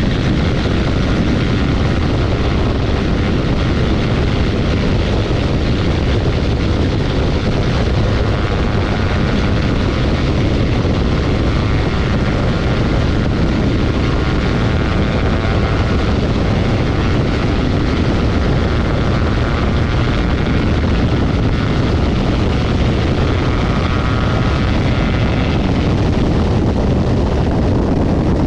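Rockwell Commander 112TC's engine and propeller running steadily in flight, with a constant rush of airflow. A faint higher whine sits over it through the middle and fades near the end.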